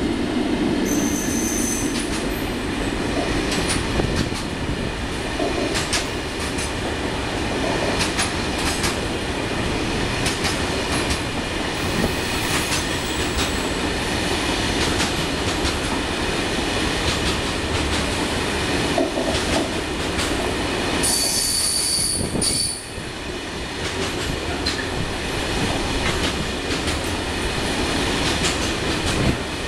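Freight wagons loaded with rail rolling past at speed: a steady rumble and clatter of wheels over the track joints. Brief high-pitched wheel squeals come about a second in and again at about 21 seconds.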